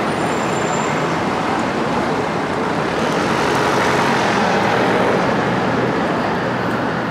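Steady city street traffic noise, a continuous wash of passing road vehicles that grows a little louder around the middle.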